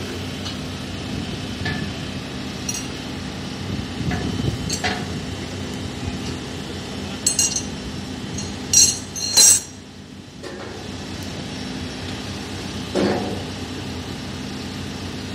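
Sharp metal clanks and clinks from steel frame members being struck and handled, the loudest two coming close together just after the middle. They sit over a steady low hum.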